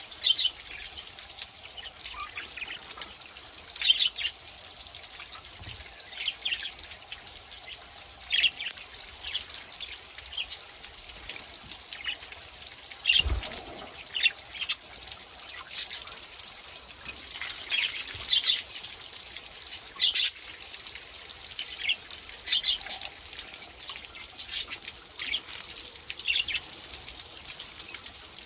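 Pet budgerigars and lovebirds chirping in short scattered calls over a steady trickle of water for their bath. There is one dull thump about halfway through.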